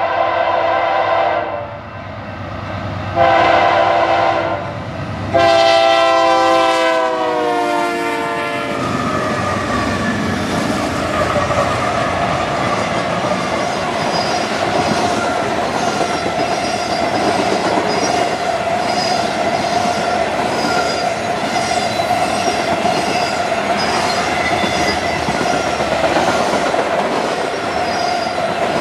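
BNSF diesel freight locomotive's air horn blowing three long chord blasts as the train approaches; the last blast drops in pitch as the locomotives pass. Then the freight cars roll by with steady rolling noise, a faint steady whine and regular clicks of the wheels over rail joints, about one a second.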